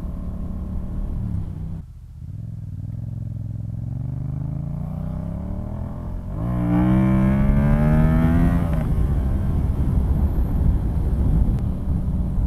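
Yamaha FZ-07's 689 cc parallel-twin, breathing through a DNA Stage 2 air filter, accelerating on the road. The revs climb steadily for a few seconds, then about halfway through comes a louder, harder pull that rises for a couple of seconds before settling into steady running with wind noise.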